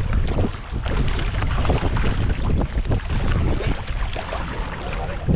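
Wind buffeting the microphone with a steady low rumble, and water sloshing and splashing irregularly against a kayak.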